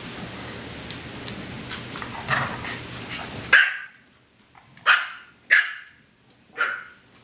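Yorkshire terrier puppies and an Australian cattle dog barking and yipping in play: about five short, high barks, the loudest about three and a half seconds in.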